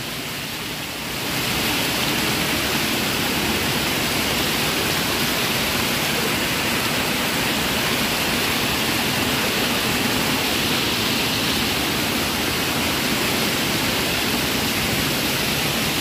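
Steady rush of a waterfall in full flow and fast water cascading down the stone steps, growing louder about a second in and then holding even.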